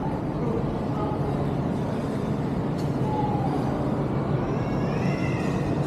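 Steady background din with a constant low hum, and a faint high wavering tone about four to five seconds in.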